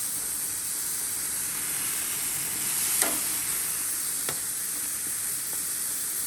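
Filet mignon steaks searing on a hot propane grill grate: a steady sizzle with the odd sharp pop or crackle, the loudest about three seconds in. The sizzle is the sign that the grill is hot enough to sear.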